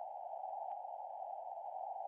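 Steady hiss of narrow-band background noise centred in the middle range, the filtered noise bed of the Morse practice audio, with no code characters being keyed.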